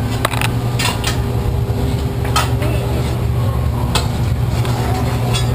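A steady low drone with a few scattered clicks and clatters.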